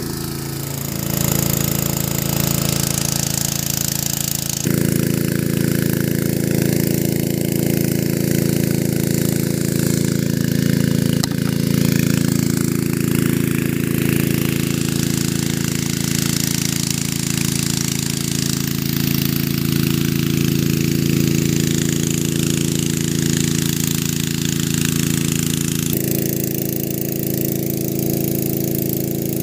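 Small petrol engine of a portable water pump running steadily. Its tone shifts abruptly a little after four seconds in and again near the end.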